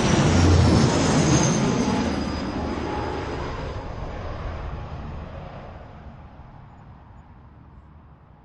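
Propeller airliner coming in to land, passing close with its engines loudest about a second in, then fading steadily away as it moves off. A high whine falls slowly in pitch as the sound recedes.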